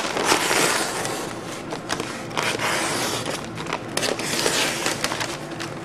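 Utility knife blade slicing through a heavy paper bag: several rasping, tearing strokes with scattered clicks.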